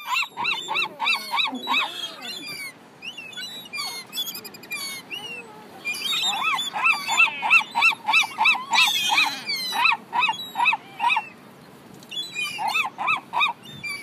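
Gulls calling: rapid runs of short, arched, nasal calls, about four a second, in several bouts with fainter calls between.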